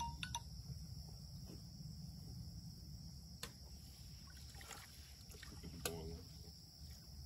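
Water sloshing and splashing softly in a pot as a slaughtered chicken is swished around in scalding water to loosen its feathers, with a few small splashes along the way. A steady low rumble and a constant high insect drone sit underneath.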